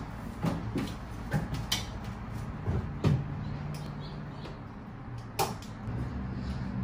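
Scattered knocks and clunks as a Suzuki RM-Z250 dirt bike is shifted around in a pickup truck bed, the sharpest about three seconds in and again at about five and a half, over a low steady hum.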